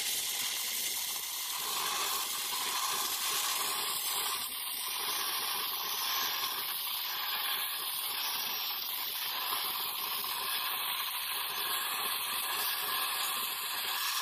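Stick-welding arc of a 3/32-inch E6010 electrode at 65–70 amps, running a keyhole root pass on 2-inch Schedule 80 pipe: a steady hiss and sizzle.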